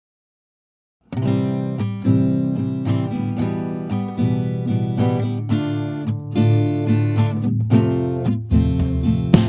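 Background music led by acoustic guitar, plucked notes with a steady rhythm, starting about a second in.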